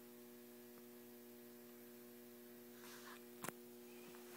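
Near silence with a steady electrical hum at several pitches, and one brief click about three and a half seconds in.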